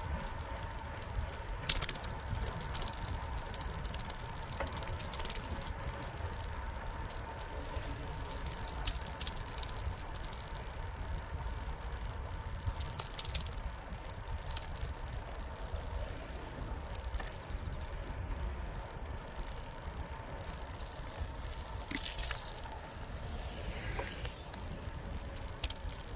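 Bicycle riding along a concrete path: a steady low rumble of tyre and wind noise, with a few sharp clicks and rattles from the bike now and then.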